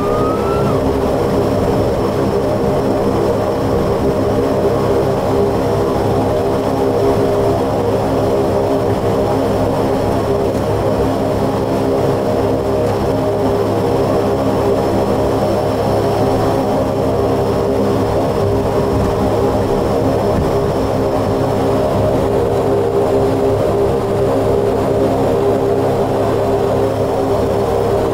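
A Saab 340's twin General Electric CT7 turboprop engines and propellers running steadily at taxi power, heard inside the cockpit as a steady drone made of several pitched tones.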